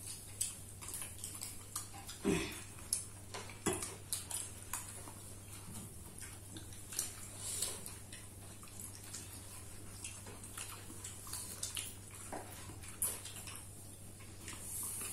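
Eating sounds at a meal: scattered small clicks and clinks of a plate and utensils, irregular and a few a second at the busiest, over a steady low hum.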